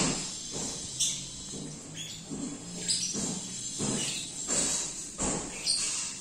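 Background ambience with brief sharp sounds about once a second.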